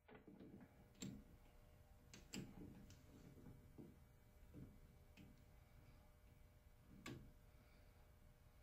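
Faint metallic clicks and taps of a three-jaw lathe chuck as a small gear is seated in its jaws and the chuck key is turned to tighten it, with a few sharper clicks about a second, two and a half and seven seconds in.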